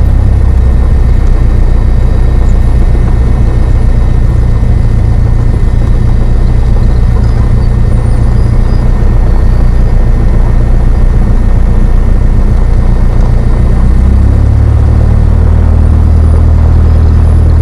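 Single-engine light aircraft's piston engine and propeller running at low power while taxiing, heard from inside the cockpit as a loud, steady drone. The engine note shifts about fourteen seconds in.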